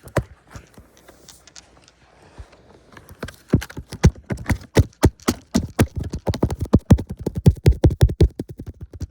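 Fingertips tapping rapidly on the recording camera right at its microphone: a quick, irregular run of loud clicks, sparse at first and then much denser and louder from about three seconds in.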